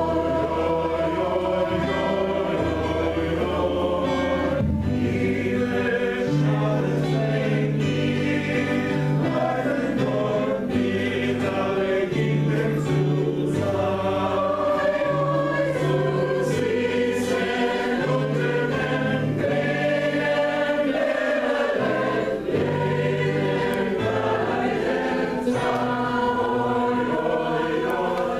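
Mixed community choir of men and women singing a Yiddish song in harmony, with sustained low bass notes changing every second or two beneath the upper voices.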